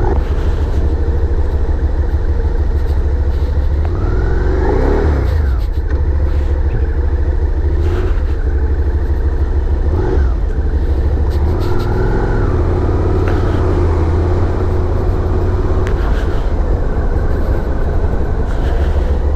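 Suzuki SV650's 645cc V-twin engine running while riding, under heavy low wind rumble on the microphone. The pitch rises and falls about four seconds in and again later.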